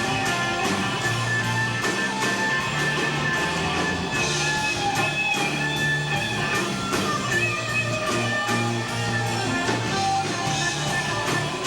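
Live rock band playing: guitars over a bass line and a steady drumbeat, recorded through a camcorder's built-in microphone.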